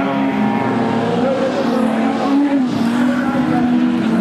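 Several production sedan race cars' engines running hard on a dirt oval, a few engines heard at once with their pitches wavering up and down as the cars power through the turn and onto the straight.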